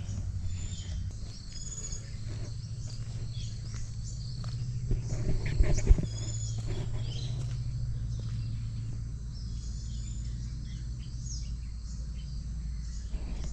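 Birds chirping and insects calling in garden trees, many short high chirps over a low steady hum. A few knocks come about halfway.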